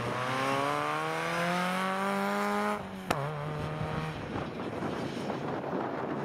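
Peugeot 106 rally car's engine accelerating hard, its pitch climbing for nearly three seconds. Then the pitch drops suddenly at a gear change, with one sharp crack, and the engine carries on at a lower note before fading into wind noise.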